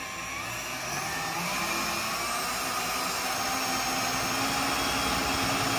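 A small electric motor running steadily, its whine climbing in pitch over the first couple of seconds as it spins up, then holding.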